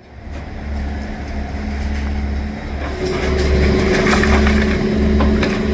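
Heavy demolition machinery running: a diesel engine's steady drone that works harder from about three seconds in, with scattered cracking and crunching of building debris.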